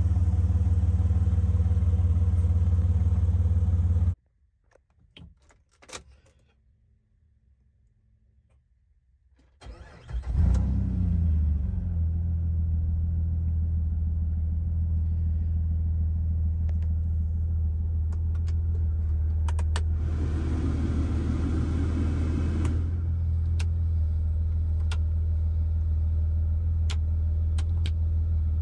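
Jeep Wrangler TJ's 4.0-litre inline-six idling, then shut off about four seconds in. After a few seconds of near quiet with a few clicks, it cranks, starts with a quick rise in revs about ten seconds in and settles into a steady idle. Switches on the dash click near the end.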